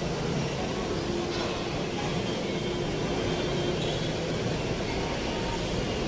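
Street traffic: cars and motorcycles running and passing, a steady noise of engines and tyres.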